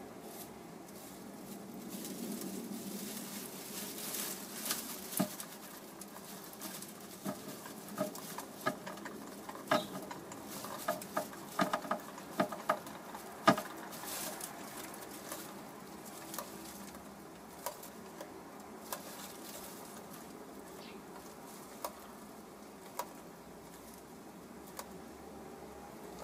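Hen moving about in a straw-lined wooden nest box: straw rustling and a series of short sharp taps, densest between about four and fourteen seconds in, then a few scattered ones later.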